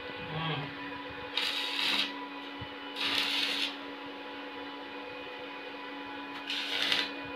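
TIG welding arc tacking a stainless-steel rail joint: three short hissing bursts, each under a second, over a steady hum from the welding machine.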